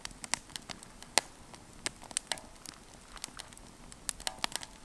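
Wood campfire crackling, with irregular sharp pops and snaps of varying loudness.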